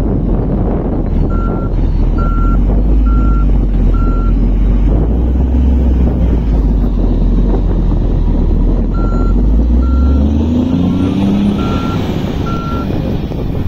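Kawasaki wheel loader's diesel engine running heavily, with a reversing alarm beeping about once a second: four beeps early on, then five more in the second half. Around the second run of beeps the engine pitch rises briefly.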